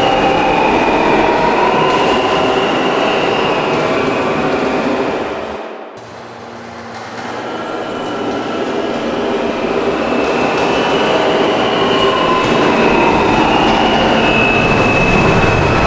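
New York City subway train running through the station: steel wheels on rail with a gliding traction-motor whine. The noise falls away and cuts out sharply about six seconds in, then train noise builds up again with the same whine.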